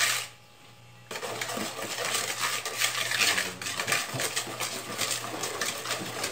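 Wire whisk beating runny cake batter in a plastic bowl: a fast, continuous clatter of the wires clicking and scraping against the bowl. It starts about a second in, after a brief pause.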